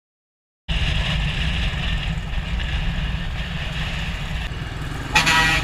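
Royal Enfield Classic 500 single-cylinder motorcycle on the move: a steady low engine and road rumble under wind rush on the camera microphone, after under a second of dead silence at the start. About five seconds in, a steady pitched tone with several overtones joins it.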